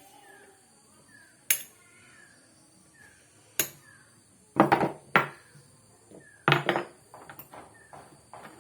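Sharp clinks and knocks of hard objects being handled and set down. First come a few single strikes, then two quick clusters of clinks in the second half.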